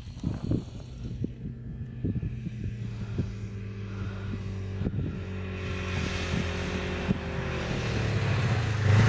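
Snowmobile engine running steadily as the machine approaches across open snow, growing louder until it is close near the end.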